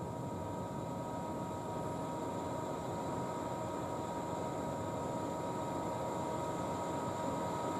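Steady hum of parked electric trains' onboard equipment, a constant whine of several tones over an even rushing noise, unchanging throughout.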